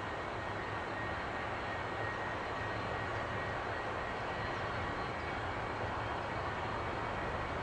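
Jet airliner engine noise running steadily, with a thin high whine held at one pitch.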